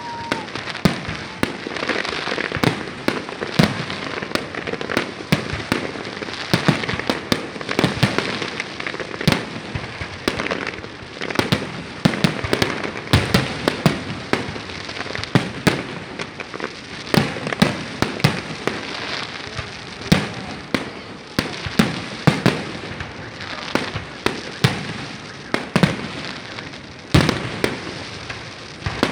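Fireworks display: a continuous, irregular barrage of bangs from bursting shells, several a second, over steady crackling.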